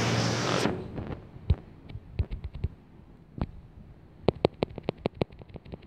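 A passing road vehicle's noise fades away within the first second. Then come light, irregular clicks and taps, some single and some in quick clusters.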